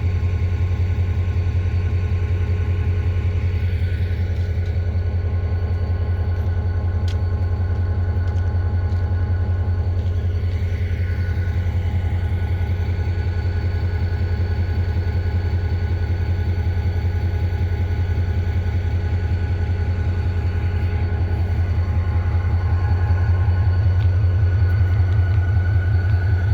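EMD GT26 diesel-electric locomotive's engine idling with a steady low throb, getting a little louder near the end.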